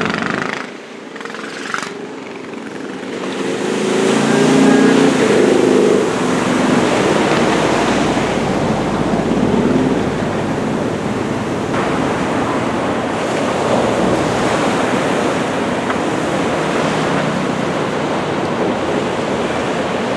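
Heavy ocean surf from typhoon swell rushing and breaking, with wind on the microphone. The rush grows louder about four seconds in and then stays steady.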